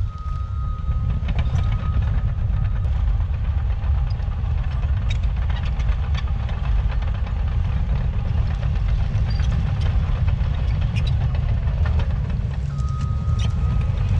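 CAT 953K track loader's diesel engine running under working load, with frequent short clanks from the steel tracks and a thin high whine that sounds briefly at the start and again near the end.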